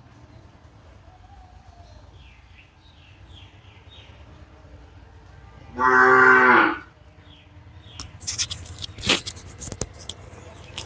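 A single drawn-out moo-like call, about a second long, near the middle. Scattered crackles and clicks follow in the last few seconds.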